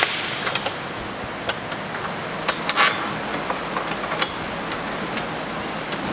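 Steady background hiss with a few sharp clicks and taps scattered through it.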